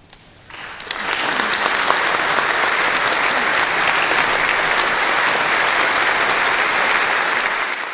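Audience applauding: clapping breaks out about half a second in, quickly builds and then holds as steady, loud applause.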